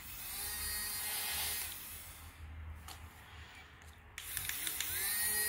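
Toy bubble gun's small battery-powered fan motor whirring, easing off about two seconds in, then starting up again about four seconds in with a rising whine that settles into a steady tone.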